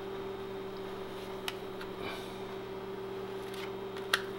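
A plastic gift card scraping solder paste across a thin metal solder stencil, with a steady electrical hum throughout. Two sharp clicks, the louder one near the end.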